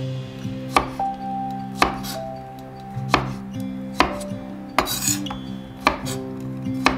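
Chef's knife slicing through cucumber and striking a wooden cutting board, one sharp knock about once a second, over soft background music.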